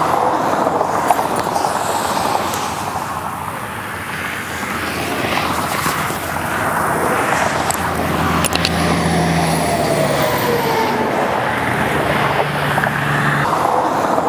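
Interstate traffic passing at speed: steady tyre and engine noise from cars and trucks. In the second half a heavy truck's engine drone comes in, with a vehicle's whine falling in pitch as it goes by.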